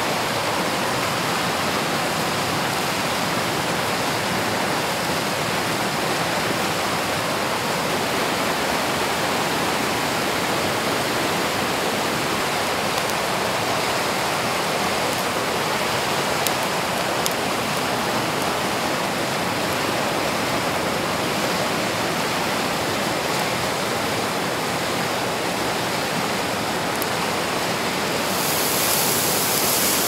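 A fast, shallow river rushing over rocks, a steady roar of white water. Near the end a higher hiss joins, ground meat beginning to sizzle in a pan over a wood fire.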